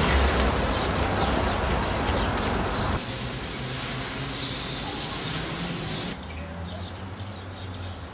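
Outdoor ambience with birds chirping over a low hum. Between about three and six seconds in, a loud steady hiss covers it, starting and cutting off abruptly.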